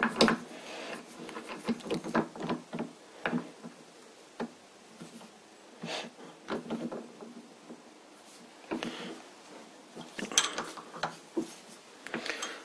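Irregular metal clicks, taps and knocks as a round metal workpiece is clamped in a three-jaw lathe chuck with a T-handle chuck key.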